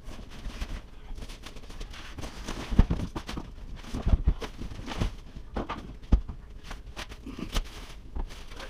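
Irregular knocks, thumps and footsteps as a person handles cabinet boxes and their packaging on a wood floor, the loudest knocks about three and four seconds in.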